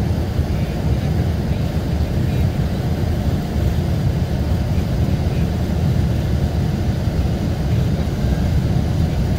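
Mercedes-Benz O-500RSD coach's diesel engine running steadily, a constant low rumble.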